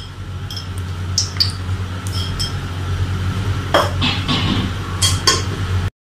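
Scattered light clinks and ticks from an aluminium cooking pot with oil heating in it, over a steady low hum. The sound cuts off abruptly near the end.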